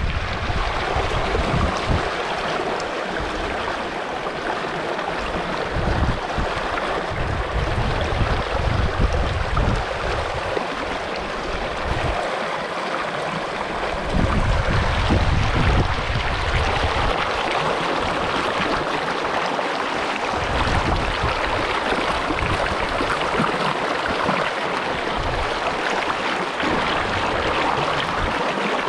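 Creek water running steadily, a continuous rushing hiss. Irregular low rumbles of wind on the microphone come and go.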